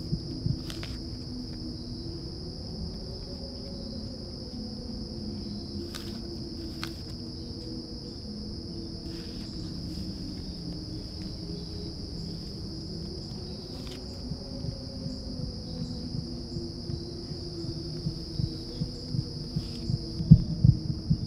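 Insect chorus of crickets, a steady high trill with a fainter higher band over a low hum, broken by a few faint clicks. In the last few seconds a series of low thumps comes more often and grows louder.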